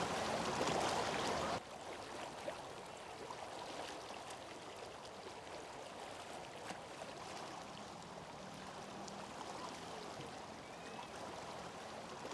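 Floodwater rushing in a steady wash of water noise. It is louder for the first second and a half, then cuts suddenly to a quieter, even rush.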